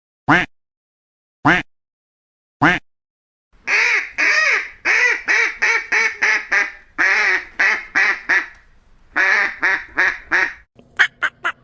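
Duck quacking: three single quacks about a second apart, then a long, fast run of quacks lasting about seven seconds, and near the end a quicker string of short calls.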